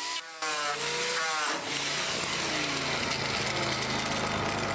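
Right-angle grinder with a sanding disc working the rusty steel wheel-well fender of a 2007 Chevy Silverado. About a quarter second in there is a sudden sharp break as the sanding disc bursts apart, and the grinder's whine falls away over the next second into a steady rough noise.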